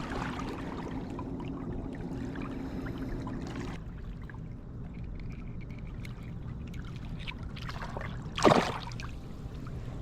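Water trickling and lapping at the shoreline, with one short loud whoosh about eight and a half seconds in.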